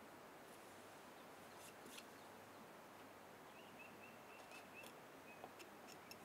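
Near silence with a faint outdoor hiss, broken by a few faint clicks of small hand tools being handled. In the middle comes a short run of about six faint high chirps.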